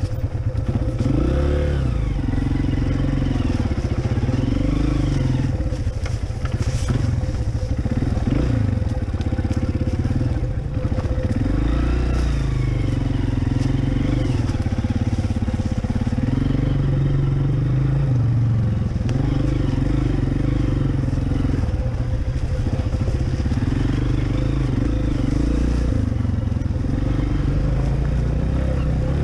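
Honda CRF230F dirt bike's single-cylinder four-stroke engine running on a trail ride, its pitch rising and falling every couple of seconds as the throttle is opened and closed.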